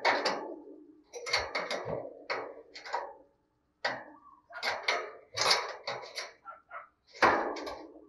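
Short knocks and rustles at irregular intervals, about a dozen in eight seconds, from a caged spotted dove shifting and preening against its wire cage.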